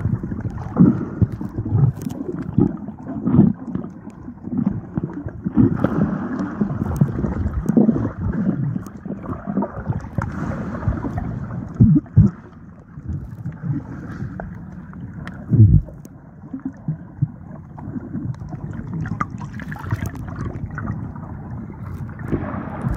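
Muffled churning and sloshing of water heard through a phone held underwater, with uneven low thuds; two stronger thuds come about twelve and sixteen seconds in.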